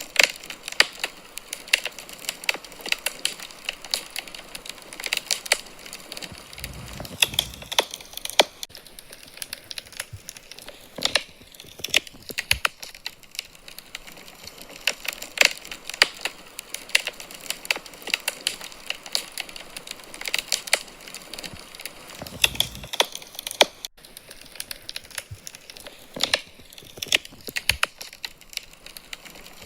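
Wood fire crackling in a fireplace: irregular sharp pops and snaps over a soft hiss, with a low whoosh of flame twice.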